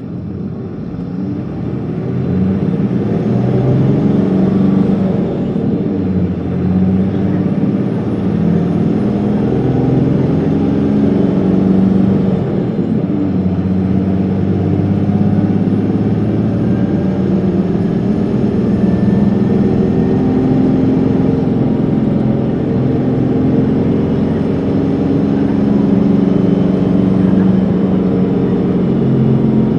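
Isuzu Erga (PKG-LV234L2) city bus's diesel engine heard from inside the bus as it pulls away and accelerates. It grows louder over the first few seconds, and its note climbs and falls back several times.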